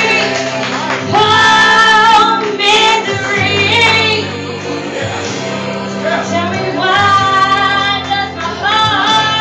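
Karaoke: a person singing into a microphone over a recorded backing track, amplified through the bar's speakers, with notes held for about a second at a time.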